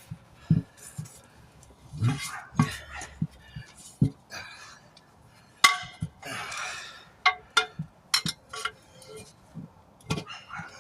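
Hand tire tools clinking and knocking against a wheel rim in a series of sharp, irregular metallic clinks while a truck tire is worked on and off the rim by hand.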